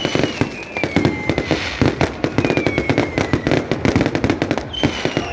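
New Year fireworks going off densely: a rapid, uneven run of bangs and crackles, with about four whistling fireworks each giving a short falling whistle.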